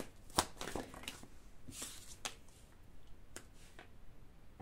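Tarot cards being handled on a tabletop: a few soft taps and clicks as cards are touched and set down, with a brief sliding swish of card on card about two seconds in.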